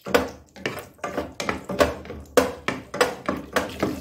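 Wooden spatula stirring cashews in ghee in a non-stick pot, knocking and scraping against the pot in a quick, uneven run of strokes, about three a second.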